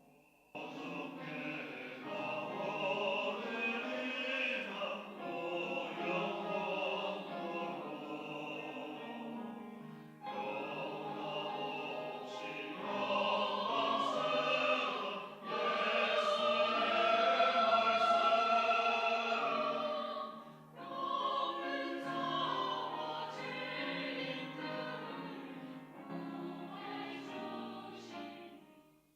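Church choir singing a Sunday anthem in phrases broken by short pauses, swelling to its loudest in the middle passage.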